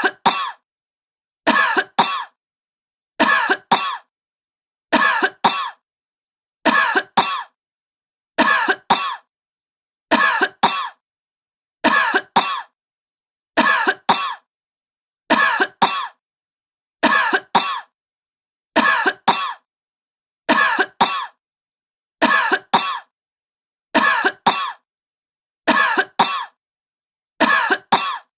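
A sick woman coughing: the same double cough, two short coughs close together, repeats about every second and three quarters, with silence between the pairs.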